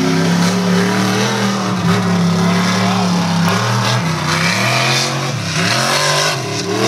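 Lifted mud truck's engine at full throttle, its pitch holding high and steady, then dropping and surging in several quick revs over the last few seconds as the truck goes over a dirt jump.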